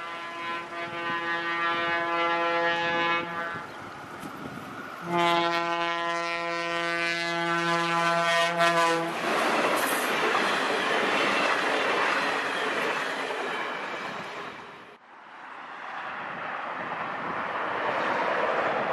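E-30 series electric locomotive's horn sounding two long blasts on one steady pitch, followed by its passenger train rolling past with a dense rumble of wheels on rail. After a sudden cut, a more distant train's rumble rises in the last few seconds.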